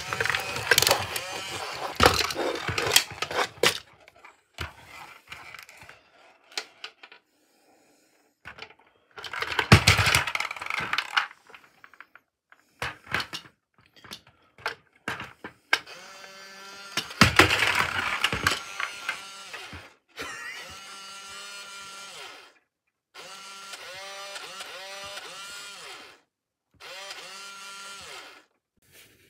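Plastic clattering and knocking as a robotic toy puppy and a plastic maze ball are pushed and bumped together on a wooden floor, in three loud bouts. Then three separate stretches of warbling electronic tones from the toy puppy's speaker, each two to three seconds long.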